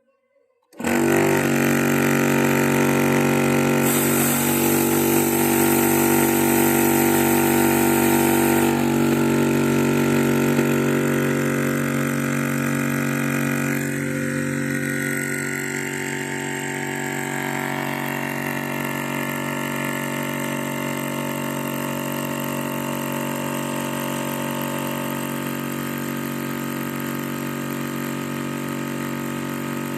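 Yong Heng water-cooled high-pressure air compressor starting up abruptly and running steadily as it fills an air rifle's reservoir. A high hiss rides on top from about four to nine seconds in, and the running then settles a little quieter.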